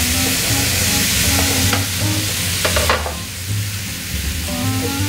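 Cut potatoes tipped into a frying pan of hot duck fat and browned lardons over a high gas flame, sizzling loudly, with a few knocks and scrapes of the knife against the board and pan. The sizzle drops off sharply about three seconds in. Light background music plays under it.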